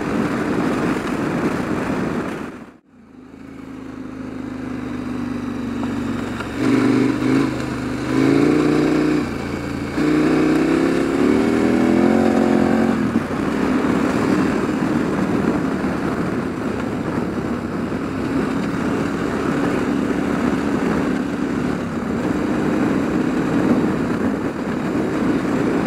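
KTM 1290 Adventure's V-twin engine running under way, with wind and road noise. The sound briefly drops away about three seconds in and fades back; from about seven seconds in the engine accelerates, its pitch rising with a couple of gear changes, then it settles to a steady cruise.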